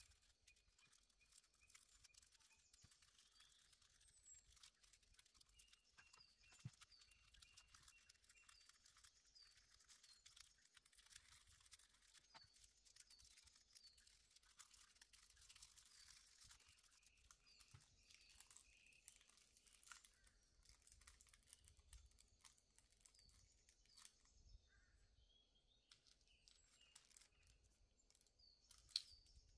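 Near silence: faint crinkling and rustling of a thin nail transfer foil being handled and peeled off a nail tip, with faint bird chirps behind it and one sharp tick near the end.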